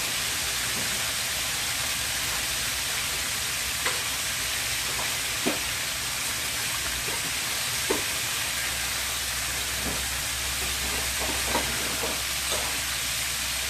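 Battered chicken tenders frying in hot oil in a stainless steel pan: a steady, even sizzle, with a few light clicks of metal tongs against the pan as the pieces are turned.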